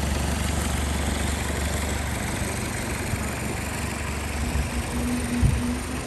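Boat engine running with a steady low hum that eases off about two seconds in, with a single thump near the end.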